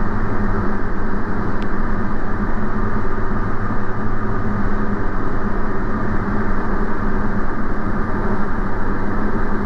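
Diamond DA40's engine and propeller droning steadily in the cockpit on final approach, with no change in pitch.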